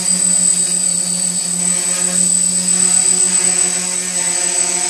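DJI F330 quadcopter hovering, its four electric motors and propellers making a steady buzzing hum at an unchanging pitch.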